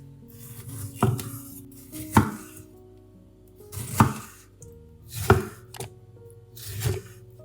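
Knife slicing through food and knocking on a cutting board, five separate cuts about a second and a half apart, each with a short hiss of the blade just before the knock. Soft background music plays under it.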